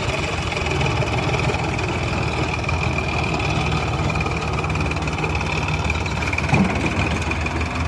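Heavy diesel engine of a tractor or backhoe loader running steadily, with one brief thump about three-quarters of the way through.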